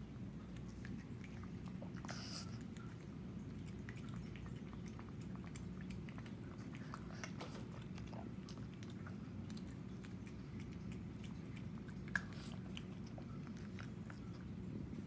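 Shih Tzu chewing and licking as it eats sardines and rice from a plate: many small wet clicks and smacks over a steady low hum, with one sharper tap about twelve seconds in.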